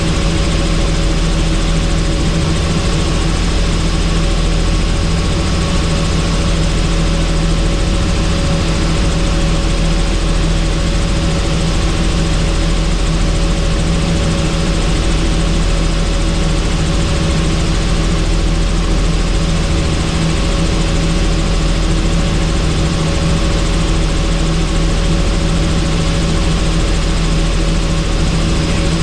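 Helicopter in steady flight, heard on board with the doors off: a constant rotor and engine drone under rushing wind noise.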